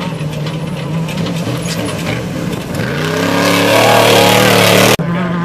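Off-road race vehicle's engine running steadily, then revving up and growing louder with rising pitch about three seconds in. The sound breaks off abruptly near the end and a steady engine note carries on.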